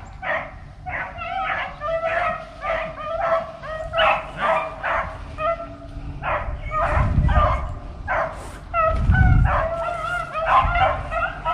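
A pack of beagles baying on a cottontail's scent trail, many short high yelping calls overlapping several times a second, which is the sign that the hounds are running the rabbit. Two low rumbles come through in the middle.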